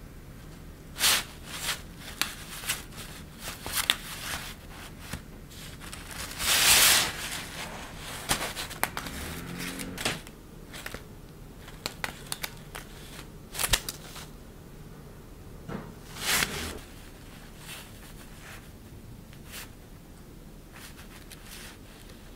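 Rustling and crinkling of a thin, shiny plaid fabric sheet as a cat-teaser wand is pushed about beneath it, in irregular bursts. The loudest rustle comes about seven seconds in, and the bursts thin out after about seventeen seconds.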